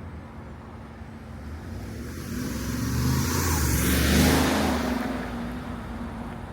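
2023 Jeep Wrangler 392's 6.4-litre Hemi V8 and its exhaust driving past. The sound builds to a peak about four seconds in, then fades away.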